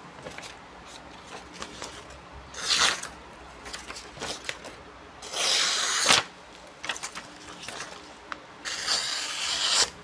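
Kitchen knife blade slicing through sheets of printer paper three times, each slice a short rasping swish, with paper rustling and crinkling between: a paper-cutting test of an edge just sharpened on a natural whetstone.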